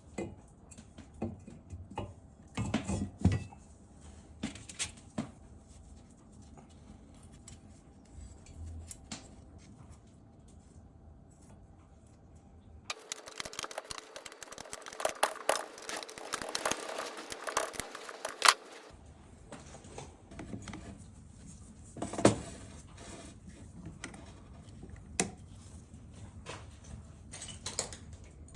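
Scattered light clicks, taps and knocks, with a denser stretch of rapid clatter lasting about six seconds a little past the middle.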